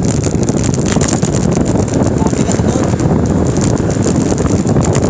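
Wind buffeting the microphone over a steady road rumble while riding along a street.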